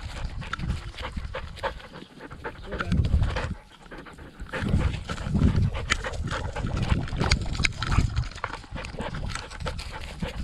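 Kelpie sheepdog panting as it runs, heard from a camera strapped to its body, with close knocks and rustling from its running and repeated low rumbling surges from the camera's movement.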